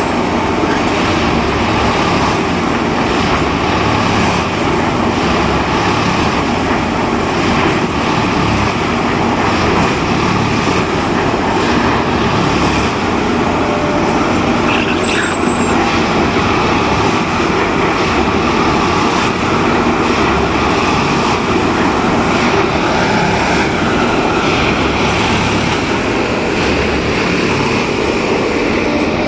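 Plasser & Theurer combined tamping machine running, a loud, steady heavy-machine noise.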